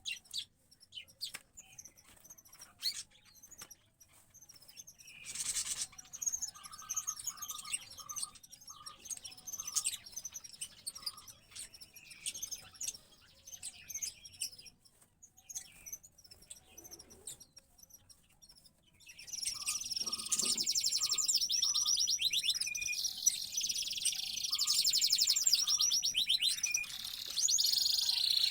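A canary and a sparrow chick chirping in short, scattered calls. About two-thirds of the way in, a loud, dense, rapid twittering starts and carries on.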